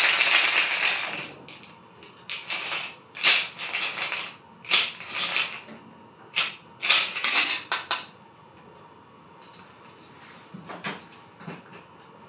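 Cocktail strained from a metal shaker through a strainer into a copper mug, the pour fading out after about a second. Then a string of sharp metal clinks and knocks from the shaker and bar tools, ending about eight seconds in.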